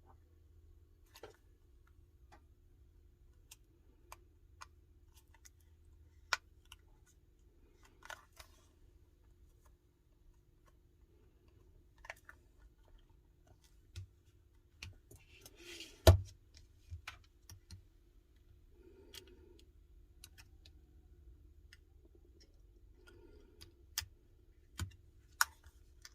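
Sparse small clicks and taps of tools and parts being handled while fitting components inside an iPhone 12, over a faint steady hum. The loudest is a sharp knock about two-thirds of the way through, with three sharp clicks near the end.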